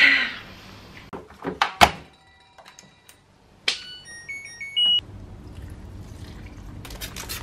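A few knocks, then an LG Direct Drive washing machine's control panel beeping a short run of tones as it is set and started, the last beep higher. A low steady hum follows.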